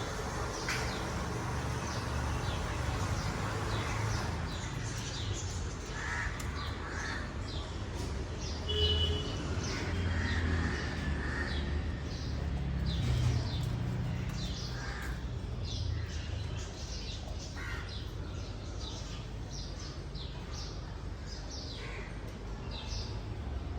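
Birds calling: many short, high chirps repeating throughout, with a few louder, harsher calls now and then, over a steady low rumble.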